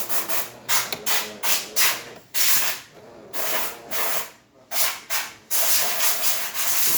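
Jura Impressa J5 super-automatic espresso machine brewing a single shot: a string of short, irregular hissing spurts, about a dozen, the last one longer.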